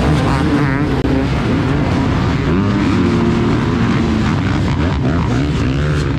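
A pack of off-road dirt bikes accelerating away from a race start together, many engines revving hard at once, their pitches rising and falling over one another.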